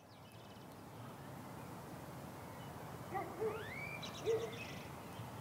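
Faint outdoor ambience fading in, a steady hiss with birds: two or three short, low hooting calls a little past the middle and a higher rising chirp just before them.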